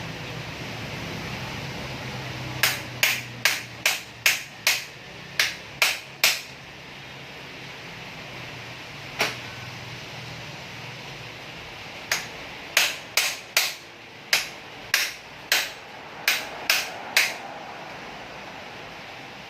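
Hammer blows on a bicycle part during repair, struck in two quick runs of about ten taps each at roughly three a second, with a single blow between them.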